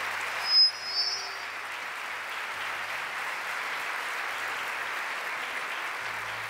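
Congregation applauding steadily, with two short high-pitched tones in the first second and a half.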